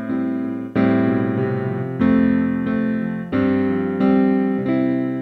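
Background music on piano: slow chords, a new one struck about every second and left to die away.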